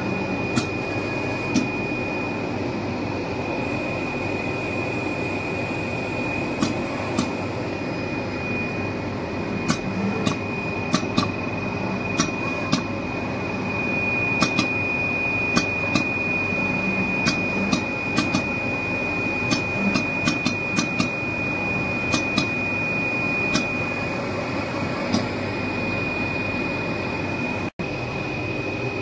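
Richpeace automatic single-ply cutting machine running: a steady machine noise with a constant high whine, broken by frequent sharp clicks as the cutting head works across the paper. The sound cuts out for an instant near the end.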